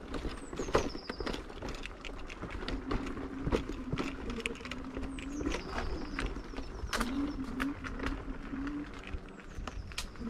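Kick scooter clattering over a stony path, with a quick irregular run of knocks and rattles and one sharper knock near the middle; a faint steady hum runs underneath for a few seconds.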